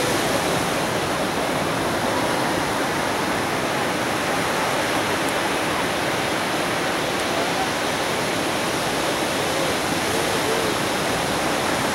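Ocean surf from a large hurricane swell breaking and washing up the beach: a steady rushing noise with no single wave standing out.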